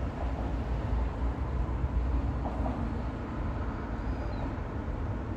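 Wind buffeting a phone's microphone: a low, fluctuating rumble.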